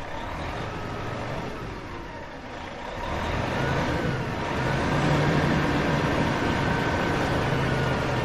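Van engine running as the vehicle drives along, growing louder about three seconds in as it picks up speed.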